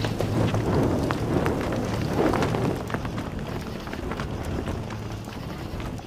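People running through dense jungle undergrowth: hurried footsteps with leaves and branches rustling and snapping, busiest in the first half and easing off toward the end. A steady low hum runs underneath.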